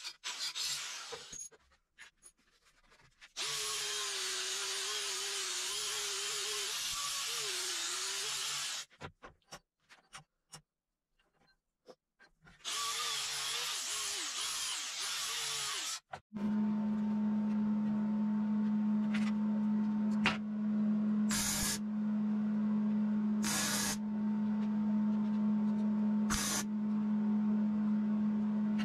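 Angle grinder cutting through steel flat bar in two long passes, its pitch wavering under load. From about halfway through, a grinder runs steadily with no load, with a few short scrapes where the disc touches the metal.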